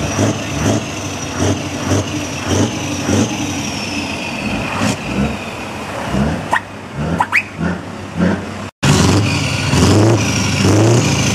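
Diesel truck engines running, with a few brief rising chirps; the sound drops out for an instant about nine seconds in. Then a Scania truck's engine runs loud close to its chrome exhaust pipe, with a rhythmic low pulsing.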